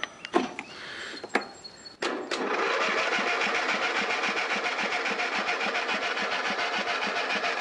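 A few clicks, then the starter of an old Husky 14.5 riding mower cranking the engine with a steady, even rhythm from about two seconds in; it does not catch. The weak battery is blamed for the cranking.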